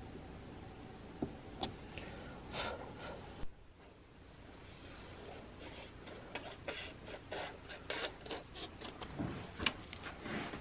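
A small pointed steel tool scraping a few short strokes in the wood of a gunstock inlet, then, after a short break, scissors snipping and paper rustling in a quick series of short strokes, about two a second.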